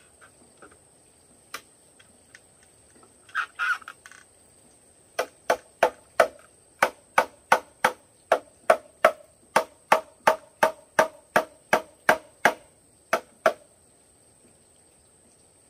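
Bamboo pounding on a bamboo bed frame to seat a rail in its post socket: a run of about twenty hollow, ringing knocks, roughly three a second, starting about five seconds in and lasting some eight seconds. A brief scrape or rustle comes a little before.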